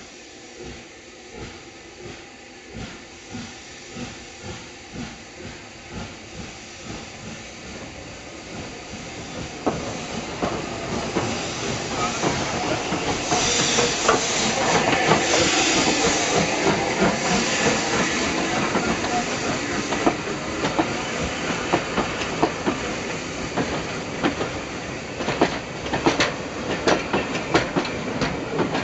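Southern Railway Schools class 4-4-0 steam locomotive No. 925 passing close by, a slow steady beat at first, growing louder as it comes alongside with a strong hiss of steam about halfway through. Near the end the coaches behind it click over the rail joints.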